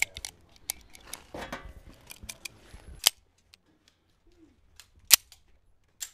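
Metal clicks as 9mm cartridges are pressed one by one into a pistol magazine. Then two loud, sharp metallic clacks about two seconds apart as a Beretta M9 pistol is loaded, the second being the slide snapping forward to chamber a round.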